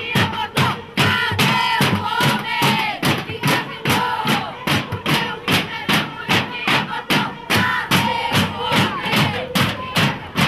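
A crowd of women marchers chanting and singing together over a steady percussion beat of about three strokes a second.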